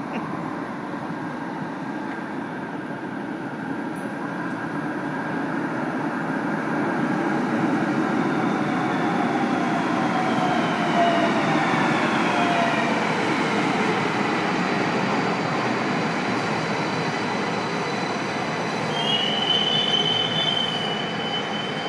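AnsaldoBreda light rail train arriving at an underground platform, its rumble building as it comes in, with a whine that falls in pitch as it brakes. Near the end, as it stops, there is a short high squeal.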